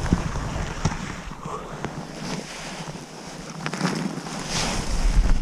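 Wind buffeting the microphone in gusts: the low rumble dies down after the first second and picks up again near the end, with a few light knocks and scrapes over it.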